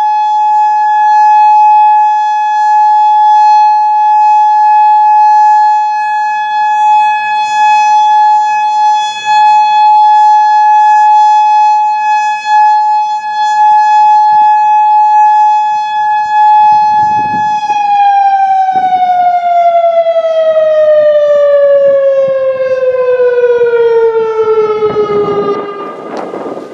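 Federal Signal Modulator 4016B tornado siren sounding its steady Alert tone, a loud unwavering pitch. About two-thirds of the way in it winds down, the pitch falling steadily as the signal ends.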